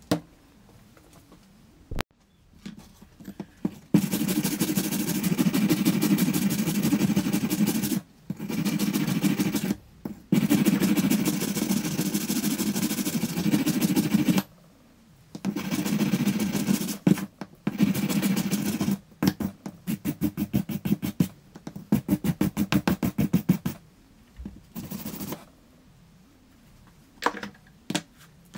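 Abrasive rubbed back and forth on metal by hand, in runs of fast strokes lasting several seconds each, then a stretch of quicker separate strokes that thin out near the end. There is a sharp click about two seconds in.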